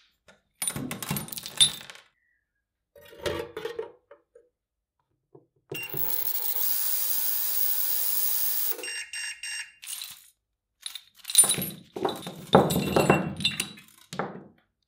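Metal parts of a restored tool clinking and clanking as they are handled and fitted, with a steady hissing whir lasting about three seconds in the middle.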